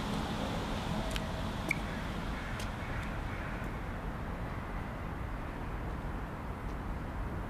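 Steady outdoor ambience, a low even rumble like distant traffic, with a few faint clicks in the first few seconds.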